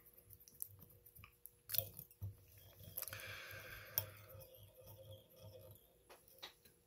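Faint clicks and soft rustling from hands working thread and peacock herl on a hook held in a fly-tying vise, with a few sharper clicks.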